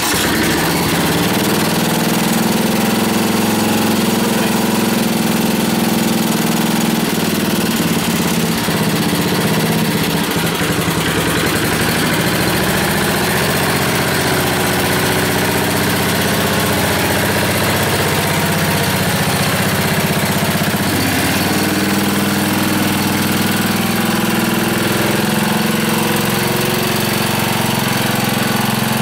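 A 1959 David Bradley Suburban garden tractor's engine catches abruptly, then runs steadily on a freshly fitted replacement carburetor.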